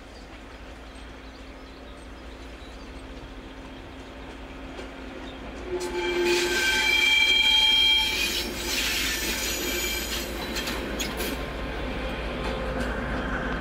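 Rail wheels squealing in several steady high tones for about two seconds, starting about six seconds in, followed by rolling rail noise. Under it runs a low rumble that grows louder near the end.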